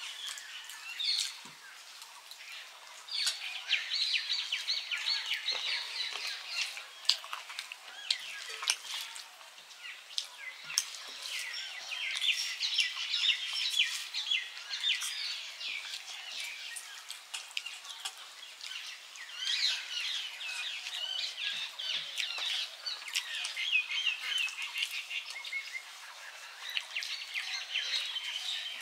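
Small birds chirping and chattering without pause, mixed with scattered short clicks.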